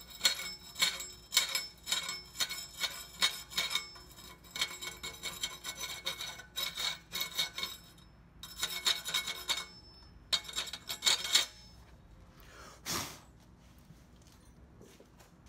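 Broad flat steel scraper drawn back and forth across a welded steel plate, scraping the slag off 6013 stick-weld beads in quick repeated strokes, about two a second. The strokes stop briefly about eight seconds in and again about ten seconds in, then end, followed by one softer swipe.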